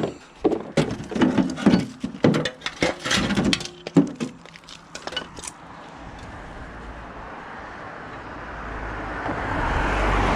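Rapid clattering and clinking of scrap items being handled and loaded, a string of sharp knocks over the first five seconds or so. After that, a vehicle's steady rumble swells, loudest near the end.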